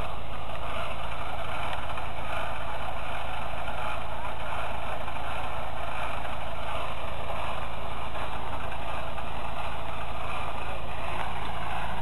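Off-road Toyota 4x4's engine running steadily under load as it crawls up a steep bank.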